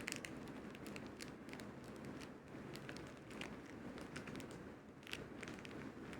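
Faint handling noise: soft rustling with scattered light clicks and crackles.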